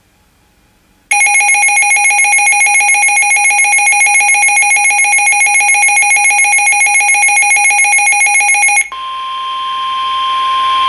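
Weather radio receiver's built-in alert alarm: a shrill electronic tone pulsing about six times a second. It starts about a second in and cuts off after some eight seconds. The broadcast's steady 1050 Hz warning tone then comes through and grows louder, signalling an incoming severe thunderstorm warning.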